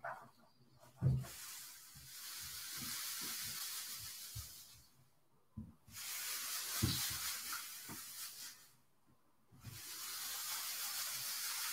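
Three bursts of steady hissing noise, each about three seconds long, with short quiet gaps between them and a dull thump about a second in and another near the middle.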